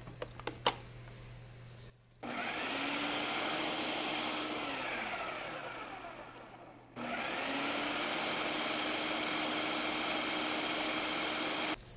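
Ninja food processor's motor chopping collard greens into pesto, in two runs. It starts about two seconds in, winds down with a falling pitch, starts again about seven seconds in and stops sharply near the end. A few light clicks come before the first run.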